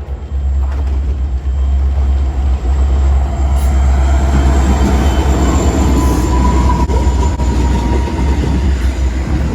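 Diesel locomotives and train passing close by: a loud, steady, deep engine rumble over rolling rail noise. A faint thin whine rises above it about six seconds in.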